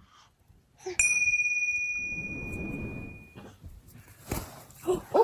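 A small metal bell struck once about a second in, ringing one clear high tone that fades away over about two and a half seconds.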